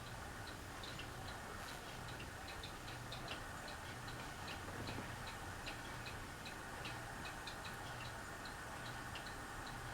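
Fasco Gulf Stream ceiling fan running: a low steady motor hum that swells and fades slowly, with a soft whoosh of air. Light irregular ticking, about three or four small clicks a second, runs over it.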